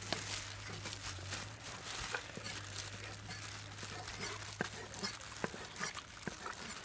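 Two cleavers cutting boiled beef intestine on a thick wooden chopping block: irregular short knocks of the blades striking the wood.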